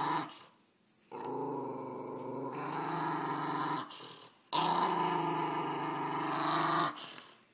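Small long-haired dog growling in long, rough stretches broken by short pauses about a second in, around four seconds in, and near the end. It is an angry growl of a dog guarding his pillow as it is taken away from him.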